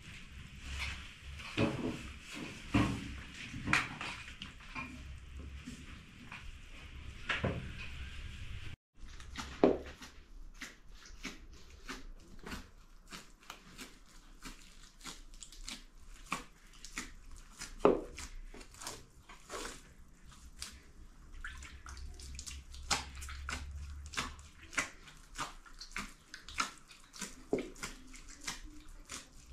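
Hands kneading wet bread dough in a large metal basin: irregular squelching and slapping, with a few louder knocks.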